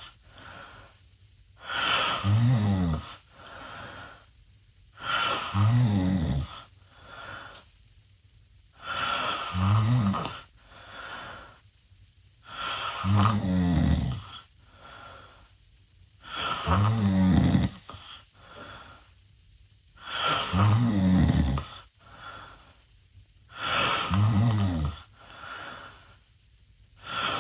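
A teenage boy snoring loudly with his mouth open. A loud, rattling snore comes about every three and a half seconds and lasts about a second and a half, with a fainter breath between snores.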